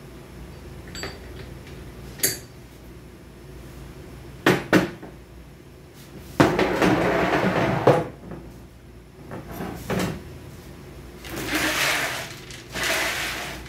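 Metal automatic-transmission parts being handled on a workbench: scattered sharp clanks and knocks, with longer scraping sounds about six seconds in and again near the end.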